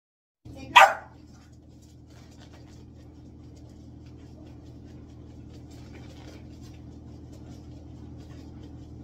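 A Shetland sheepdog gives one sharp bark about a second in. After it there is a steady low hum with faint scattered ticks.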